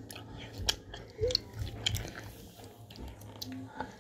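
Thick, putty-like homemade slime being squeezed and kneaded in the hands, giving irregular sticky clicks and small crackling pops.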